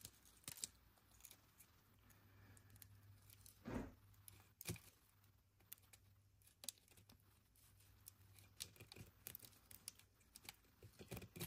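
Faint, scattered scratches and ticks of a flat razor blade scraping and flaking layers off a fossil-bearing sedimentary rock slab, with one louder, duller sound nearly four seconds in.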